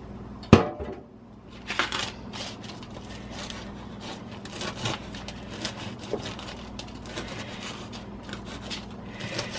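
A sharp knock about half a second in, then a run of small irregular cutting and scraping strokes as cooked bacon is cut up on a paper plate.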